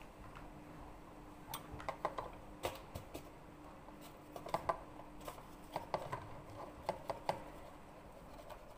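A flour bag crinkling and rustling in irregular sharp crackles as it is handled and opened.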